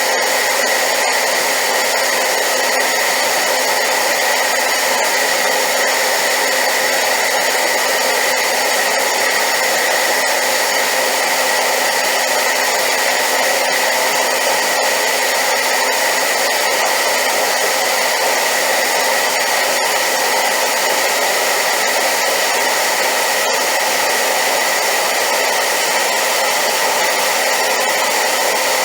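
Hair dryer running steadily on high power: a constant loud rushing hiss with a steady high whine in it.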